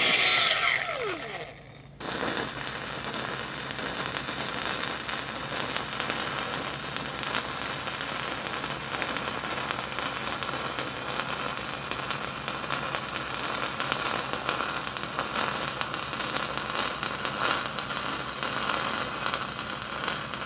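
A grinder spins down with a falling whine in the first second and a half. After a short silence, a stick-welding arc strikes and crackles steadily as an 8010 rod runs the hot pass on a pipe joint.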